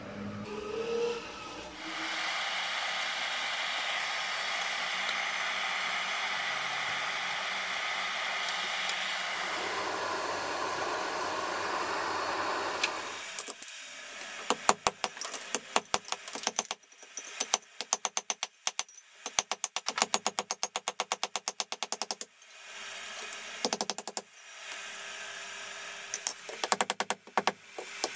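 A forge running with a steady rushing noise for about eleven seconds. Then comes a hand hammer striking a red-hot steel bearing race over a hot-cut hardy on the anvil, in fast runs of several blows a second with short breaks.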